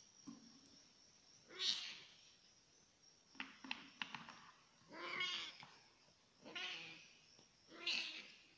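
Kitten meowing four times, short calls a second or more apart, with a few light clicks midway.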